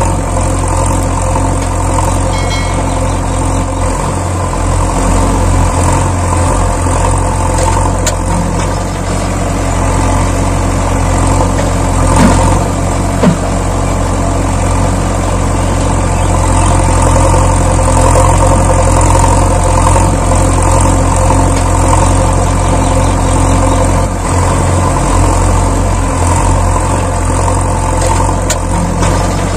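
A vehicle engine idling steadily, with two brief clicks about a second apart near the middle.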